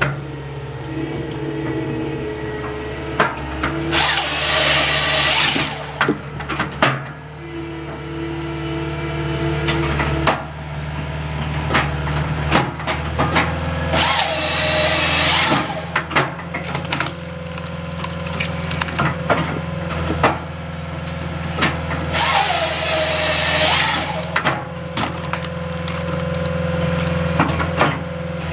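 Skidsteer engine running steadily while a Halverson HWP-140B firewood processor works a log: three saw cuts, each lasting about two seconds and coming roughly every nine seconds, with sharp wood cracks and knocks in between.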